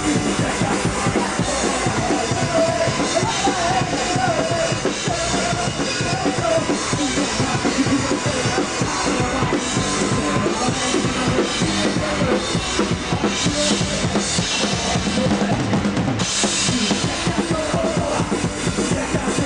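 Punk rock band playing live, with the drum kit and bass drum to the fore.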